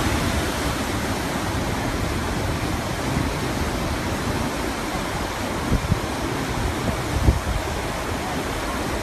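Fast-flowing flash-flood water rushing steadily down a channel, with two brief low thumps about six and seven seconds in.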